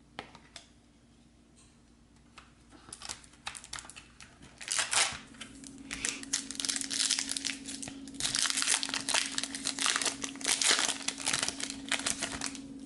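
A trading-card pack's foil wrapper being crinkled and torn open by hand: a few small rustles at first, building to dense crackling from about a third of the way in, loudest near the end. A steady low hum sits underneath in the second half.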